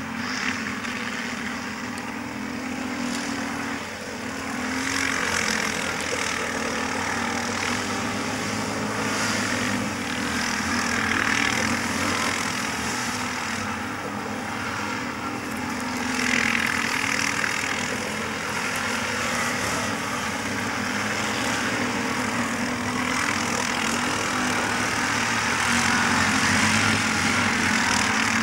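Several ATV (quad bike) engines running, the sound swelling every few seconds as the throttle is opened.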